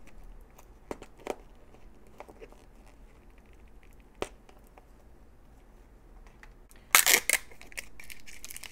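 Sticker seal peeled off a plastic toy capsule ball, with a few small clicks and scrapes, then about seven seconds in a short loud burst of crinkling as the ball opens and the wrapped miniature inside is handled.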